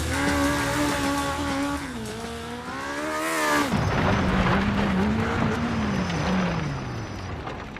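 Opel Ascona's engine revving: held at steady high revs, then rising sharply to about three and a half seconds in and cutting off, then running at lower, wavering revs that fall away and fade.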